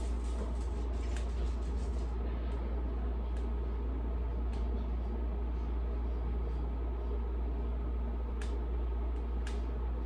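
Steady low mechanical hum, like a fan or running appliance, with two light clicks near the end.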